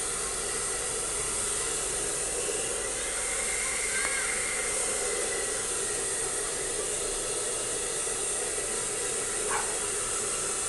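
Hand-held hair dryer blowing steadily, drying a husky's wet fur.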